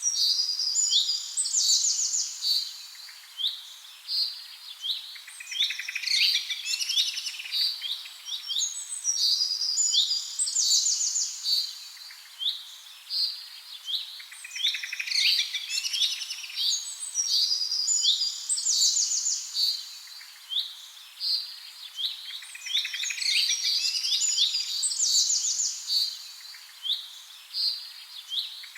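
Small birds chirping and singing together: many short, high-pitched chirps and rapid trills overlapping, swelling and easing in waves every few seconds.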